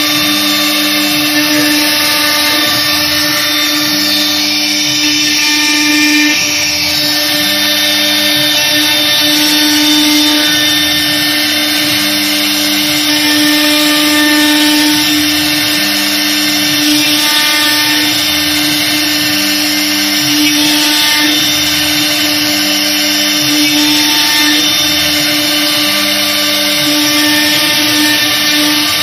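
1325 CNC router carving a wooden door panel: the spindle runs at high speed with a steady whine while the bit cuts the wood. Under it, a lower hum starts and stops every two to three seconds as the head follows the carving path.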